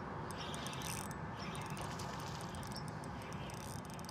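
Spinning reel being cranked to bring in a small hooked bass: faint, rapid clicking from the reel over a steady background hiss.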